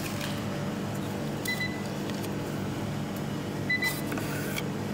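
Steady electrical hum, with a short high electronic beep twice, about two seconds apart, and a brief paper rustle near the end.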